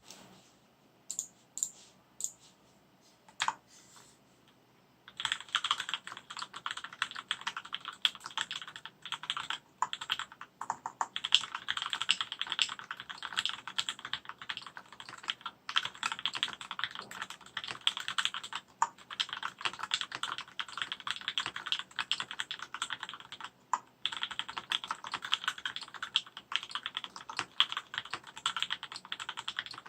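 Typing on a 60% mechanical keyboard with linear Gateron Clear switches on 62g springs and JT black keycaps. A few single keystrokes at first, then fast continuous typing from about five seconds in, with a few brief pauses.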